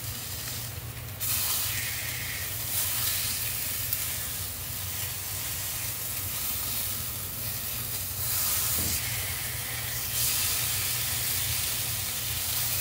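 Fish fillets sizzling in a frying pan as they are turned with tongs and a spatula, a steady hiss that steps up louder about a second in and again near the end.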